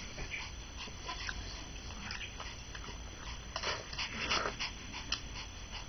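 Maltese dog breathing and making small mouth sounds, a handful of short breathy noises at irregular moments, with no barking.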